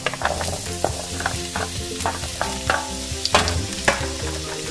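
Cubed potatoes and carrots sizzling as they go into hot olive oil in a frying pan, with frequent clicks and knocks as the pieces land and shift, two louder knocks a little past three seconds in.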